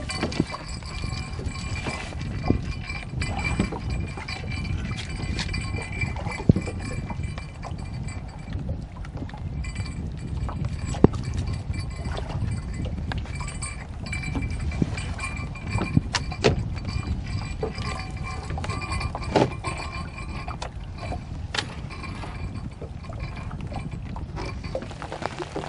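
Wooden cane fishing poles knocking and clicking against a small wooden boat as they are handled and set, over a steady low rumble of wind and water. Faint steady ringing tones come and go.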